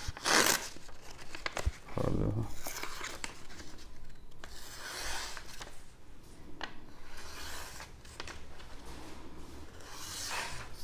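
Sheet of paper being sliced with a sharp folding knife: several separate slicing strokes through the paper, with paper rustling between them, as a test of the blade's sharpness.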